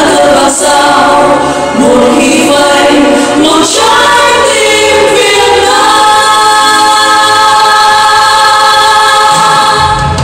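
Live stage singing through a PA: several voices singing together with music behind them, moving through short phrases and then holding one long chord from about six seconds in until it fades near the end.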